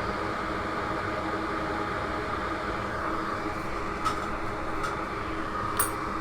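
Steady whirring fan hum from bench equipment on a micro-soldering station, with a few light ticks in the second half.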